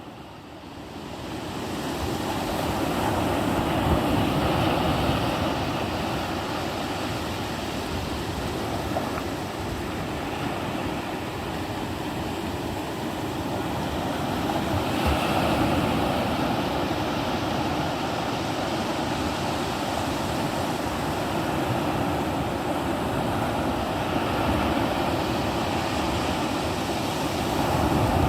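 Atlantic ocean surf breaking on the shore, a steady wash that fades in over the first two seconds and then swells and eases in slow surges as waves come in.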